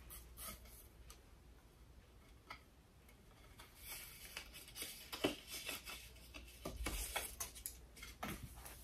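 Faint snips of small plastic-handled decorative-edge craft scissors cutting the string that holds a tag onto a synthetic wig, a few isolated snips at first, then a busier run of clicks and rustling as the cut tag card is handled in the second half.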